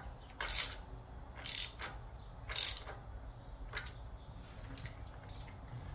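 Socket ratchet clicking as bolts are tightened: three loud strokes about a second apart, then a few fainter clicks over the last few seconds.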